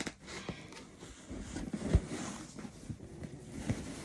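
Handling of a tightly taped package: rustling and scattered knocks as it is worked at by hand, with one sharp thump about two seconds in.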